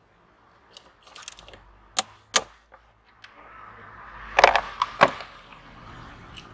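Hand ratchet and socket loosening engine-cover bolts: scattered sharp metallic clicks and clinks, with the loudest cluster about four and a half seconds in.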